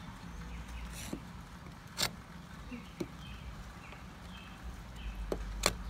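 Folding knife blade tapping and scraping against a window sill and frame: a handful of sharp clicks, irregularly spaced about a second apart, over a low background hum.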